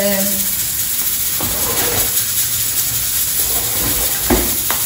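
Minced-meat kefta and chopped onion sizzling steadily in hot oil in a frying pan, with a few short pops.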